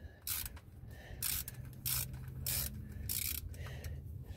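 Ratchet wrench clicking in a series of short bursts as it turns the oil pan drain plug loose, over a low steady hum.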